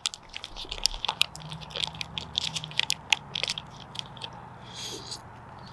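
Noodles being eaten from a foil-lined pouch: many small sharp clicks and crinkles as a fork digs into the pouch, with biting and chewing.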